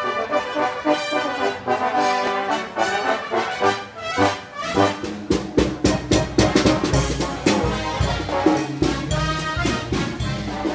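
Brass marching band playing in the open street: trumpets and trombones over snare and bass drum. About five seconds in, a low rumble joins and the music sounds less clear.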